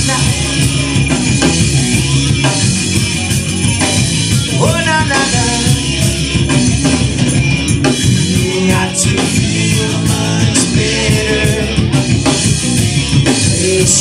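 Rock band playing live: guitars, bass and a drum kit playing loudly and steadily, with a man singing over them.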